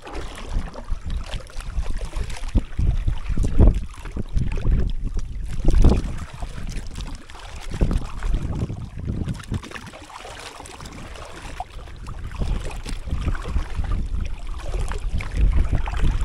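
Wind buffeting the microphone in irregular gusts, over water sloshing around a bamboo raft as a wading man pushes it through the sea.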